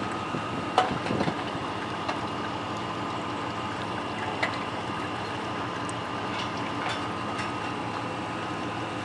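Gasoline pouring steadily from a metal fuel can into a car's fuel filler, with a couple of faint knocks of the can against the filler.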